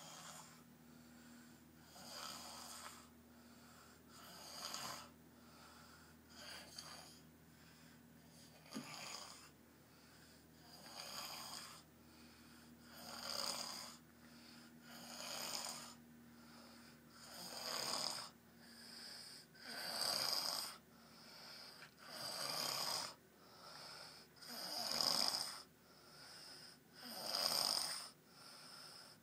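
Someone snoring in a steady rhythm, about one snore every two seconds, the snores growing louder toward the end.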